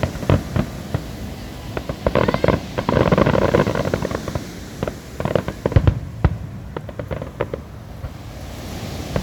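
Fireworks going off: a rapid run of sharp bangs and crackles, densest about two to four seconds in and thinning out after about six seconds.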